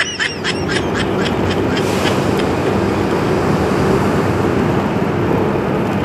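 Motorcycle riding at speed: steady engine note under wind and road noise. In the first second or so a short run of quick high-pitched pulses fades out.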